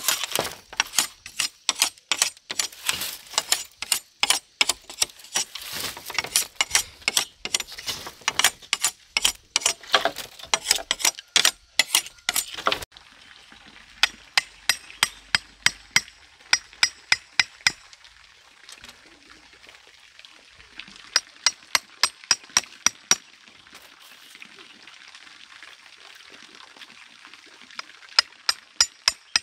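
Heavy knife splitting and scraping green bamboo into strips: a fast, dense run of sharp cracking and scraping strokes. About halfway through it gives way to a steady faint hiss with three short runs of knife taps on bamboo, about three a second.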